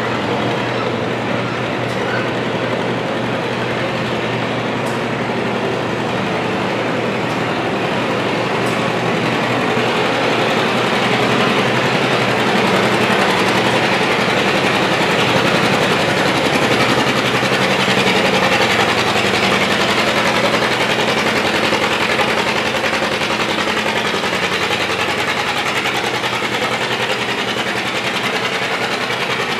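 Antique John Deere two-cylinder tractor engine running hard under full load while pulling a weight-transfer sled, a steady loud chugging that holds for the whole pull.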